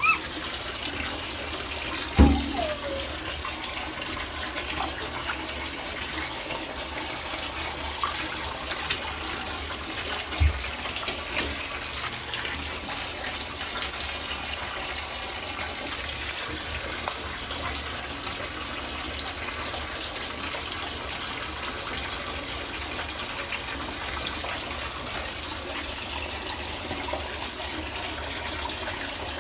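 Water running steadily into a bathtub from the tap, a constant rush. A sharp knock comes about two seconds in, and a fainter one about ten seconds in.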